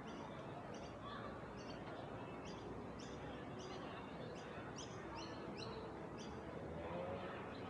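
A bird calling over and over in short high chirps, about two a second, stopping about six and a half seconds in, over the steady low hum of the street.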